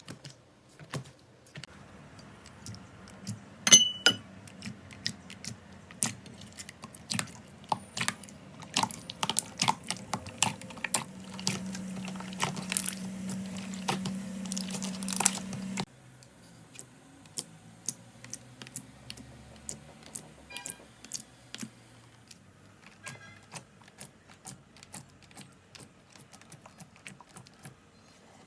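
Slime being squished and poked by hand, giving irregular sticky clicks, pops and crackles. A steady low hum runs under it and stops abruptly about halfway through, where the clip changes and the clicking turns softer and sparser.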